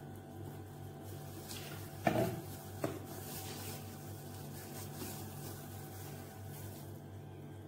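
Two short clatters of kitchenware against an enamel plate, less than a second apart and the first the louder, over a steady low hum.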